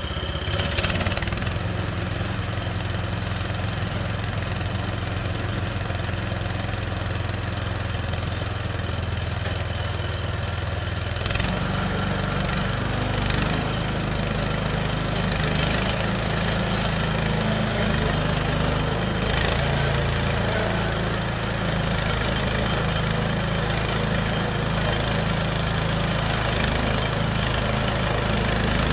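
Gasoline engine of a Harbor Freight Central Machinery bandsaw mill running steadily. About eleven seconds in, its note shifts higher and a little louder, and it runs on under load as the band blade cuts through a log, throwing out sawdust.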